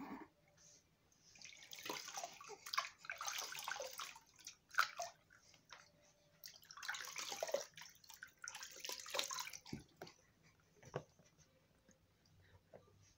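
Water sloshing and splashing in a plastic baby bathtub as a hand washes a baby, in two stretches of a couple of seconds each, followed by a couple of small knocks.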